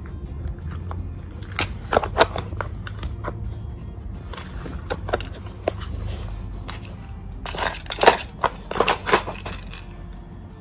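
Hard plastic clicking and clattering of a Nina Ottosson Dog Brick puzzle toy as a beagle noses and shoves its sliding blocks, with crunching as the dog eats the treats it uncovers. The clatter comes in two bursts, about two seconds in and again around eight seconds in.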